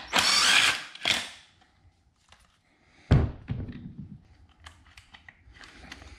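Parts being handled while an outboard's recoil starter assembly is taken off the powerhead: a short rasping scrape at the start and another just after a second in, then one solid thunk about three seconds in, followed by light scattered clicks.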